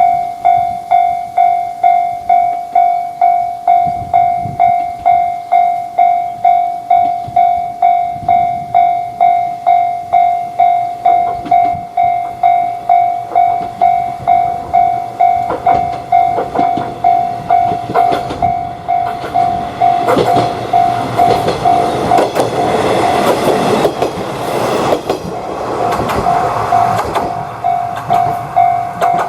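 Japanese level-crossing alarm ringing its steady "kan-kan" tone about twice a second. From about halfway a train approaches and passes, its wheels clacking over the rail joints and partly drowning the bell, which comes back through near the end.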